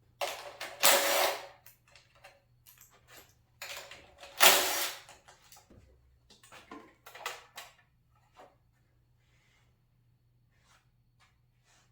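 Two bursts from a power tool working on engine fasteners during the teardown, each about a second and a half, the second the louder, followed by scattered clinks and knocks of tools and parts.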